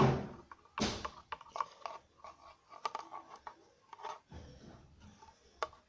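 Handling noises: a knock at the start and another about a second in, then scattered clicks and scrapes.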